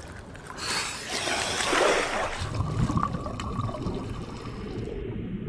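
Rushing, watery noise that swells about a second in and then eases off, turning duller and more muffled near the end.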